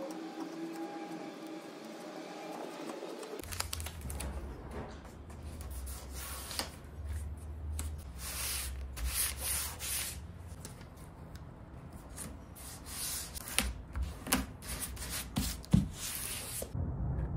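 Blue painter's tape being laid along a wooden dresser edge and rubbed flat by hand: a run of short rasping rips and rubs, starting about three seconds in.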